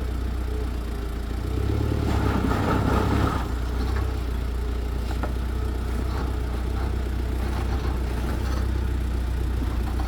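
Off-road vehicle's engine running steadily, growing louder for a second or two about two seconds in.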